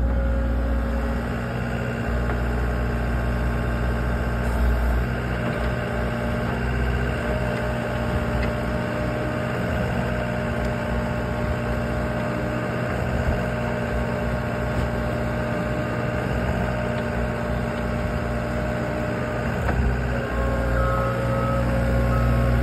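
A loader's diesel engine running steadily, driving a Flip Screen S-45 rotary screening bucket that turns and sifts dry soil through its mesh drum, with a thin steady whine over the engine. A backup alarm beeps near the end.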